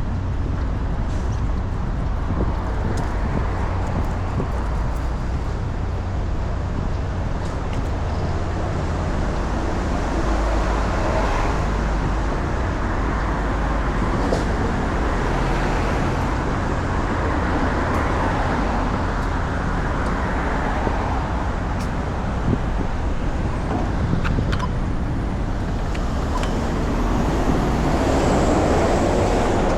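Steady road traffic, with cars passing and a low engine rumble underneath. Near the end one vehicle comes close, louder, its engine pitch rising as it accelerates.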